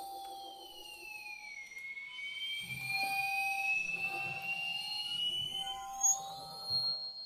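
Live experimental electronics: a piercing, alarm-like high tone glides down over the first couple of seconds, then slowly climbs back up. Beneath it are a steady mid-pitched tone and a low rumbling texture that comes in about midway, with two brief louder accents near the end.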